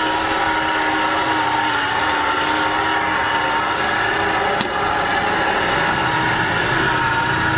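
Electric juice extractor running with a steady motor whine as pineapple is fed through it and juiced.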